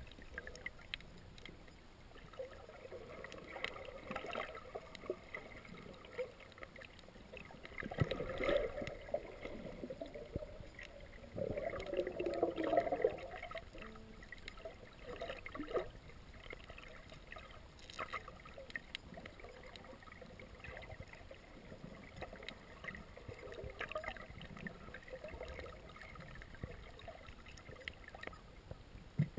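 Underwater sound picked up by a camera in its waterproof housing: faint muffled water noise with a few sharp clicks, swelling louder about 8 and 12 seconds in.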